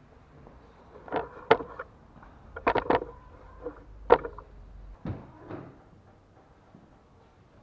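A series of sharp knocks and clatters, several in quick succession about three seconds in, with a faint low rumble in the middle: handling noise as the camera is moved and repositioned.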